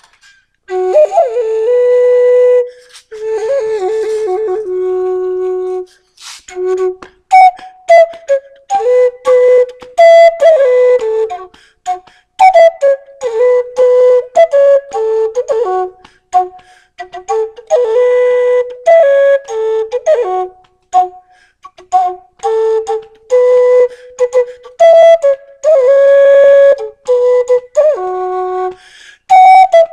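A tune played on a flute: a run of short notes with a few longer held ones, broken by brief gaps between phrases.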